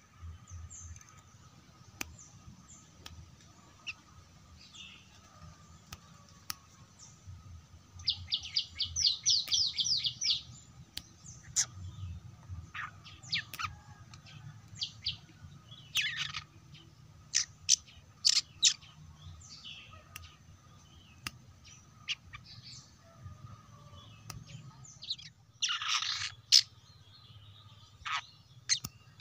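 Young long-tailed shrike calling: scattered sharp high chirps, a quick run of about ten high notes, and a harsh, rasping call near the end.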